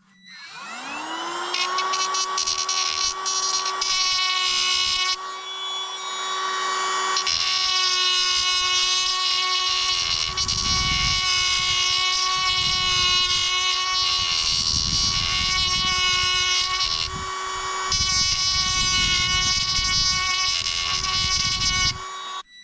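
Small electric power tool's motor spinning up from a stop to a steady high whine. It runs under varying load, with a rougher low rumble under the whine for several seconds in the middle. It cuts out shortly before the end.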